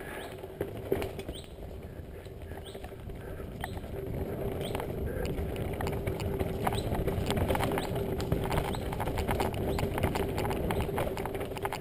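Mountain bike descending a dirt forest singletrack: tyres rolling over packed dirt and roots with a constant scatter of clicks and rattles from the bike, getting louder from about four seconds in as the speed picks up.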